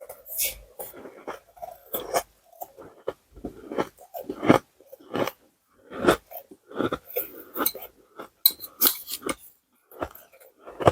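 Ice being chewed and crunched close to the microphone: an irregular run of sharp cracks and crunches with short pauses between them.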